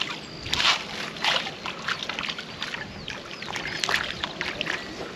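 Repeated small splashes and plops on a pond's surface where fish food has been thrown in and fish are coming up to take it, short sharp strikes scattered through, the loudest in the first second or so.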